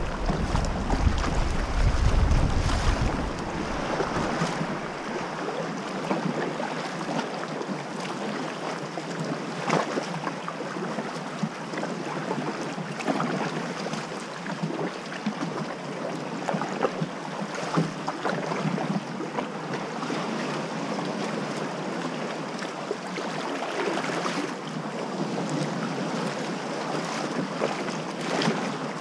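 Sea water sloshing and lapping around a sit-on-top kayak, with irregular splashes of paddle strokes. Wind rumbles on the microphone for the first three seconds or so, then drops away.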